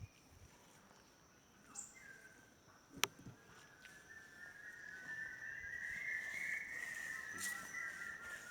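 Quiet outdoor ambience with a faint steady high insect drone and one sharp click about three seconds in. From about four seconds, a sustained wavering high tone, like an insect's buzz or a whistle, grows louder and holds.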